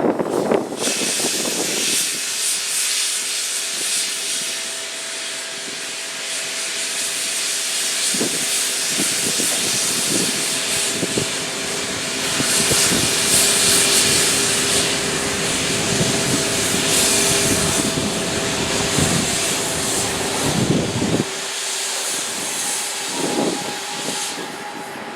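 C62 steam locomotive letting off steam: a loud, steady hiss that starts about a second in and stops near the end, with irregular low puffs beneath it in the middle.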